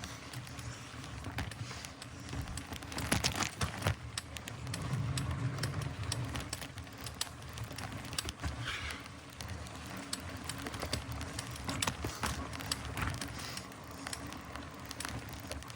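Mountain bike being ridden over a dirt woodland trail: tyre noise with a low rumble and frequent irregular clicks and rattles from the bike.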